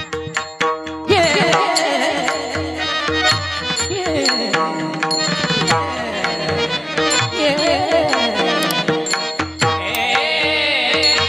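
Devotional kirtan singing: a voice enters about a second in with long, gliding melismatic notes over a steady drone and hand-drum strokes.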